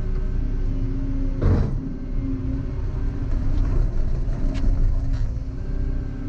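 Volvo EC140EL excavator running steadily, with one loud knock about one and a half seconds in and a few lighter knocks later on.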